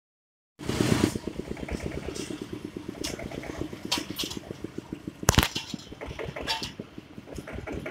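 A small engine running steadily with a fast, even beat, starting after a brief silence, with a few sharp knocks over it, the loudest about five seconds in.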